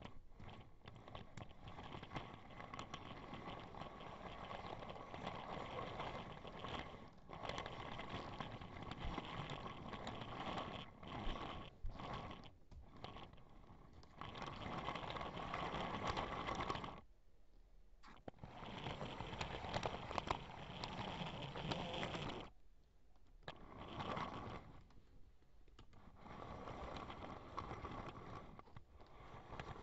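3D-printed HO-scale toy train rolling over 3D-printed plastic track, a continuous rattling, scraping rumble picked up by a camera riding on the train. It stops abruptly a few times in the second half, then starts rolling again.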